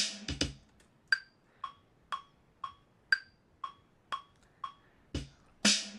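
Akai XR20 drum machine kick and snare hits being recorded into Ableton Live, a few at the start and again near the end. Between them, Ableton's metronome ticks about twice a second, with a higher-pitched accented tick on every fourth beat.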